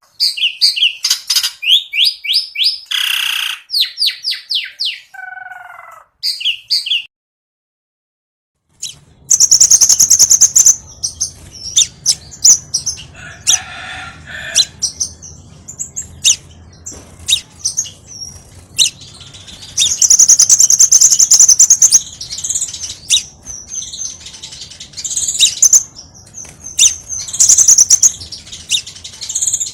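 Scarlet minivet calling in a lively run of rapid, high, thin repeated notes. The calls stop for about two seconds, then resume busier and denser, with steady low background noise underneath.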